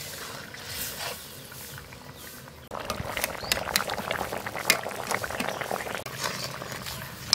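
Chicken curry boiling in a kadai over a wood fire: a dense bubbling crackle with fine pops, quieter at first and suddenly louder about two and a half seconds in.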